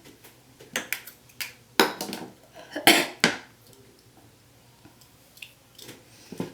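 A string of clicks, clinks and short scrapes from small hard objects being handled and set down, busiest about two to three seconds in, with a few more near the end.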